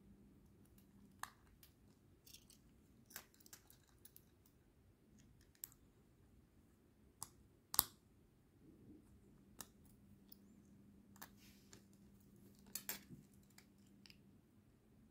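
Scattered small clicks and scrapes of a metal pick prying at the plastic shell of a 433 MHz remote-control transmitter fob to open it, with the sharpest snap about halfway through and a quick cluster of clicks near the end.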